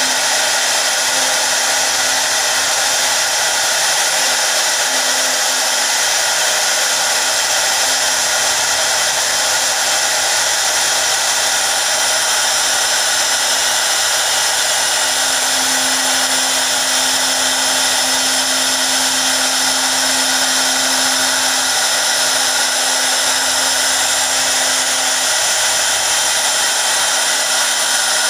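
A CNC router spindle running at high speed with a steady high whine, its small engraving bit cutting a shallow line into the board.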